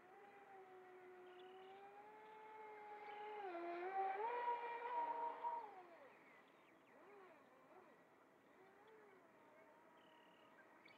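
Feilun FT011 RC speedboat's brushless electric motor whining at full speed as the boat makes a fast pass. The whine swells and jumps up in pitch as the boat closes, is loudest about four to six seconds in, then drops in pitch and fades as it goes by.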